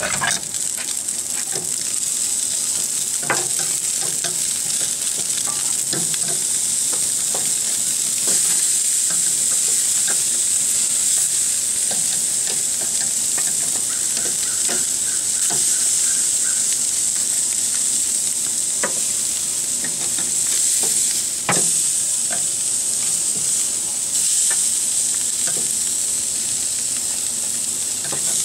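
Beef ribs sizzling on a hot grill grate, a steady hiss. Several short clicks of metal tongs against the grate and ribs come as the ribs are turned and moved.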